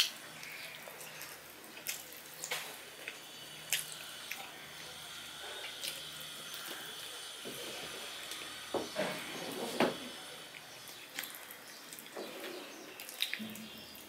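Close-miked eating sounds from someone eating rice and curry by hand off a steel plate: wet squelches as the fingers mix the food, with chewing and lip smacks. Short sharp clicks come now and then, and a run of louder wet smacks comes about two-thirds of the way through.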